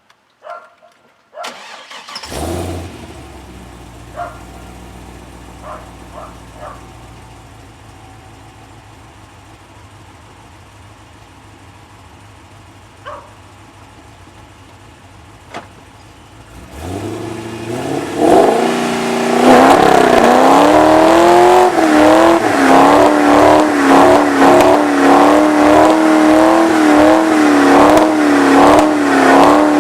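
First-generation Cadillac CTS-V's LS6 V8 starting about two seconds in and settling to an idle, then revving up after the middle and held at high revs with a wavering pitch for a burnout. Loud throughout the second half.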